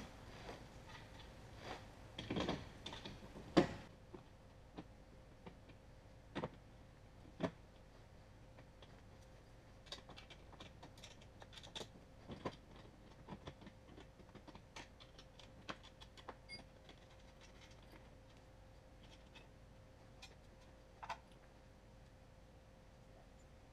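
Scattered light clicks and metallic taps of small hardware, bolts and a hand tool, being handled, with a few louder knocks in the first four seconds, the loudest about three and a half seconds in. A faint steady hum runs underneath.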